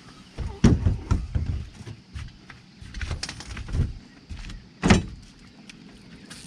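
Irregular knocks and thumps on a fishing boat's deck as a person steps forward and handles rods in a bow rod holder; the two loudest thumps come about a second in and about five seconds in.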